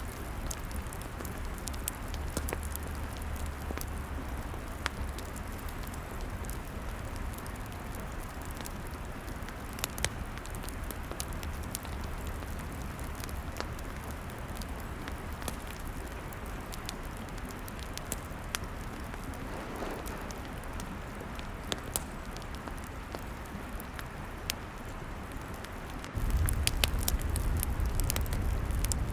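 Log fire crackling, with scattered sharp pops over a steady hiss and a low rumble. The low rumble gets suddenly louder near the end.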